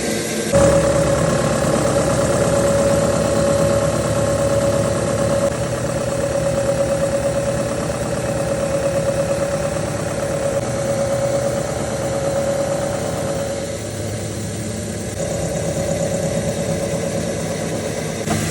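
Duplex milling machine cutting steel: a steady machining drone with a sustained whine that comes in just after the start and eases briefly about fourteen seconds in.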